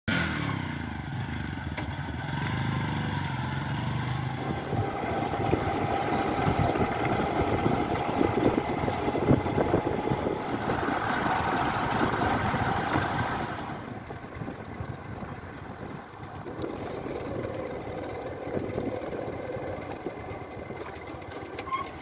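Bajaj Discover motorcycle's single-cylinder four-stroke engine, ticking over at first and then running under way. It gets quieter from about two thirds through.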